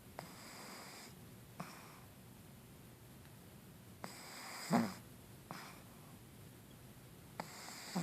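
Pug snoring in its sleep: wheezy, hissing breaths in and out about every two seconds, each starting with a small click. The loudest is a low, rumbling snore nearly five seconds in.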